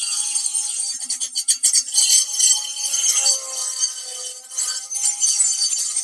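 Fein Multimaster oscillating multi-tool with a bi-metal blade cutting through light-gauge galvanized steel angle: a loud, high-pitched metallic rasp with a rapid jingling buzz and ringing tones that waver as the blade loads in the cut.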